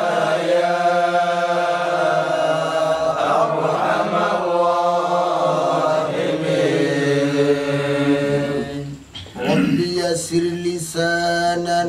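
Slow, drawn-out male chanting of an Arabic supplication (du'a), long held notes sliding from pitch to pitch, with a short break for breath about nine seconds in.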